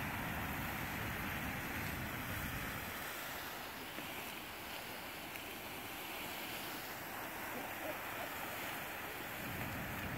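Fan and Mortar Geysers' vents splashing and steaming, a steady rushing hiss of water and steam: the splashing that comes just before an eruption.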